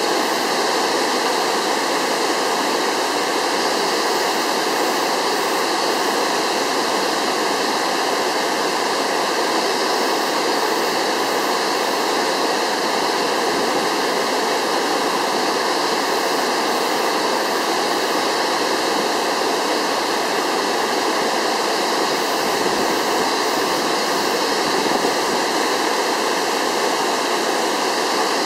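Waterfall in flood, swollen by typhoon rain: a steady, unbroken rush of falling water.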